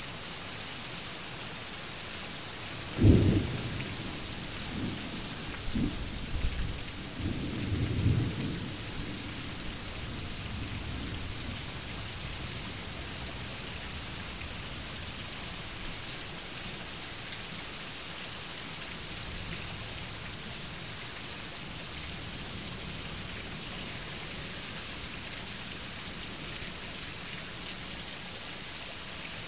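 Steady heavy rain, with a sharp thunderclap about three seconds in and rolling thunder over the next several seconds that fades away.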